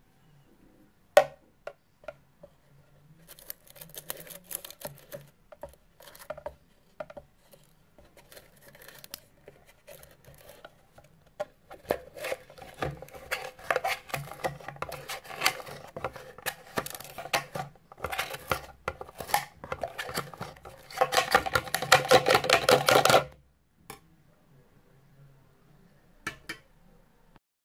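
Plastic clicking and rattling as the clear dust container of a Bosch BKS4043 handheld vacuum is handled over a ceramic sink. A sharp click comes about a second in, the rattling thickens after the middle, and a fast, loud rattle lasts about two seconds near the end.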